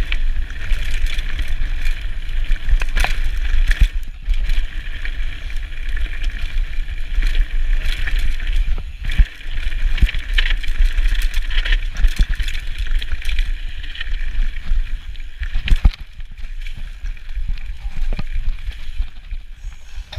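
Mountain bike descending fast over a rocky dirt track. Wind rumbles steadily on the microphone, and the bike rattles and knocks sharply over stones.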